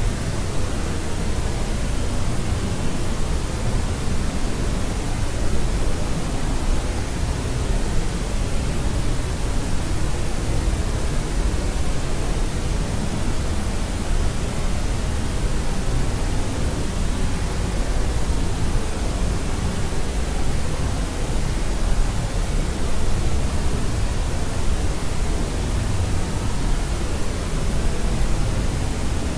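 Steady sleep white noise: an even, unbroken hiss that is heavier in the low end, like pink noise, with no change in level.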